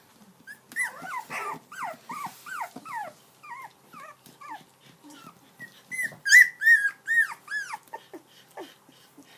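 Dog howling in a run of short yowls that rise and fall in pitch, about two a second, loudest just past the middle and trailing off into lower notes near the end.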